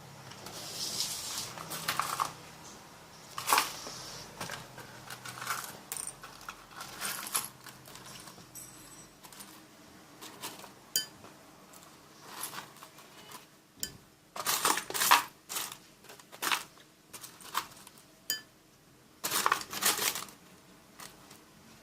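Small seashells clinking and tapping as they are dropped and stirred into a bowl of slime glue. The clicks come scattered, in denser clusters about two-thirds of the way through and near the end.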